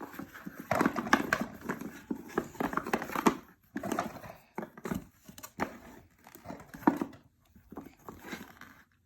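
Children's jigsaw puzzle pieces being handled, with irregular clicks and knocks as the pieces are picked up and tried against each other.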